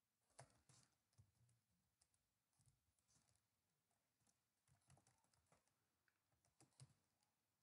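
Faint computer keyboard typing: a string of quick, irregular keystrokes.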